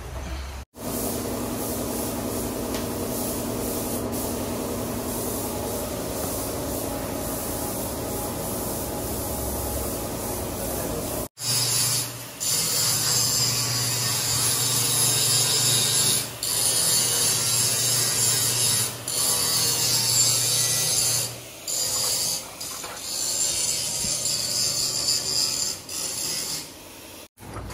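Angle grinder cutting and grinding a steel truck-bed plate, a loud high grinding that drops out and starts again several times. Before it, for about the first ten seconds, a steady lower mechanical hum.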